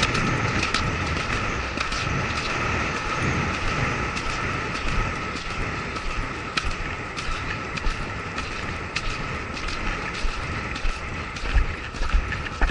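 A horse galloping on grass, heard from the rider's helmet camera: a steady rush of wind over the microphone, with low thuds of hoofbeats and irregular sharp clicks.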